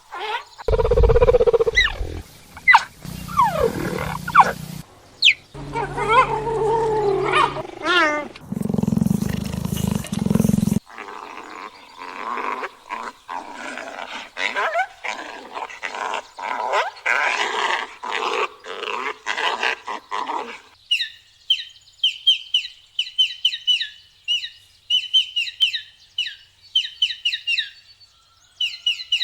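A sequence of different wild animal calls: several loud roar-like calls over the first ten seconds or so, then a long run of rapid, repeated calls, and from about twenty seconds in a bird's high chirps repeated over and over.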